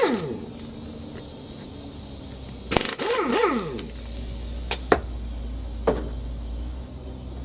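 Pneumatic impact wrench run in short bursts, its air motor whining up and back down in pitch with a hiss of exhaust air, once at the start and in a cluster about three seconds in, followed by a couple of sharp clicks.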